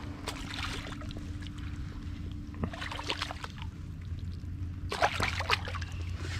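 Shallow river water splashing as a released smallmouth bass thrashes at the surface and swims off, in brief sloshing bursts about three and five seconds in, over a steady low hum.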